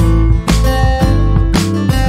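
Background music led by a strummed acoustic guitar with a steady beat.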